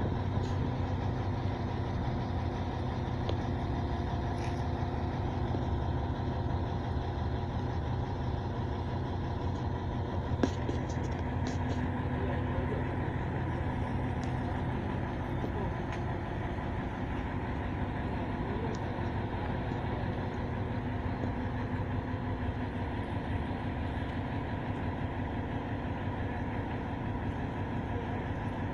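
Truck-mounted crane's diesel engine running steadily as it lifts a motor boat on slings, with one sharp click about ten seconds in.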